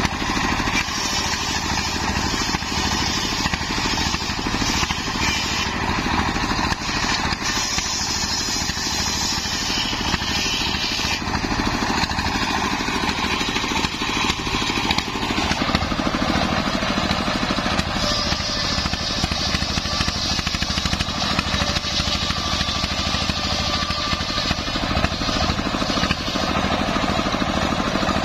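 Stationary single-cylinder diesel engine running steadily, driving a large belt-driven circular saw blade on a homemade sawmill table that cuts waru wood. The sound grows brighter and harsher about halfway through.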